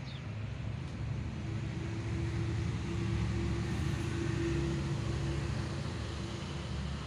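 ED4M electric multiple unit moving alongside the platform close by: a low rumble with a steady hum, swelling in the middle and easing off slightly near the end.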